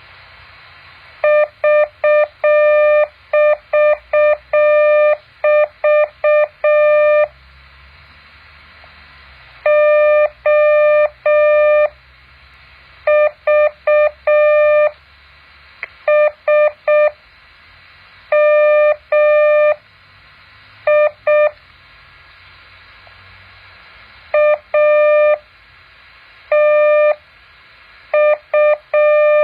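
Morse code practice tone: a single mid-pitched tone keyed on and off into dots and dashes, sent as character groups with pauses of one to two seconds between them.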